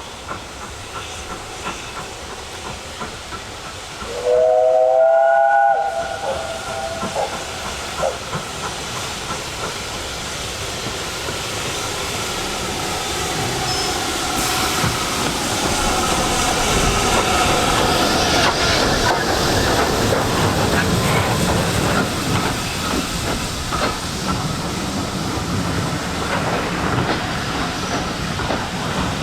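A steam locomotive sounds its whistle once, a loud multi-tone blast of about a second and a half, then works past with hissing steam, exhaust beats and the clatter of carriages on the rails, growing louder from about a third of the way in.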